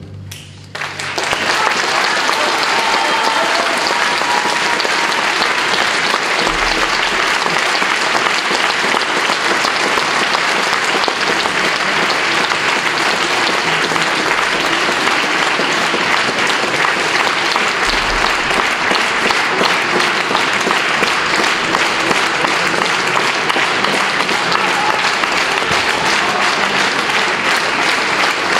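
Concert hall audience applauding steadily, the clapping taking hold about a second in as the orchestra's final chord dies away.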